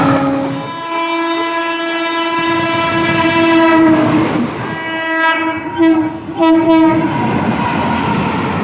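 Locomotive horn sounding a long blast of several seconds, then a shorter blast and two quick short toots, over the running rumble and wheel clatter of a fast train passing.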